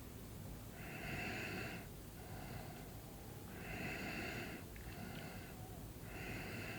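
Sleeping person's snoring breaths through the nose, repeating about every two and a half seconds. Three loud, hissy intakes, each followed by a softer outward breath.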